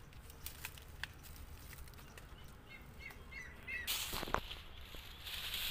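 Quiet outdoor background with a few short bird chirps, then bursts of rustling handling noise about four seconds in and again near the end, as a finger brushes over the phone.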